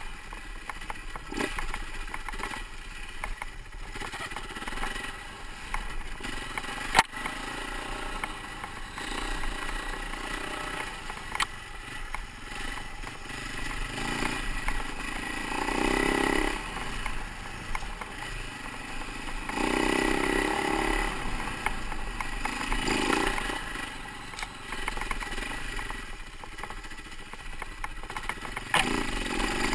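Husaberg FE450 single-cylinder four-stroke dirt bike engine running on a trail ride, swelling louder three times in the second half as the throttle is opened. There is one sharp knock about a quarter of the way in, the loudest moment.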